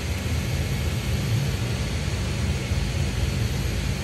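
Steady low hum with an even hiss over it, the constant background noise of a workshop, with no distinct events.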